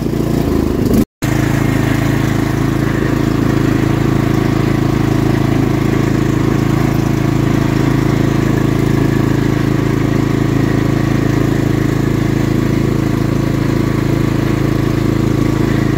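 Cub Cadet XT1 riding lawn mower engine running steadily as the mower drives along. The sound cuts out for an instant about a second in.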